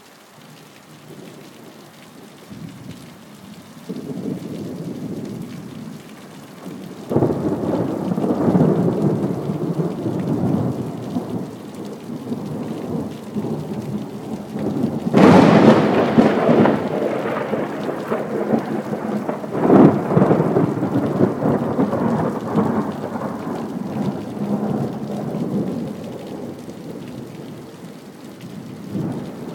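Thunder rolling over steady rain: a low rumble builds, a sharp crack of thunder strikes about halfway through, followed by long rumbling with another loud peak a few seconds later, then slowly fades.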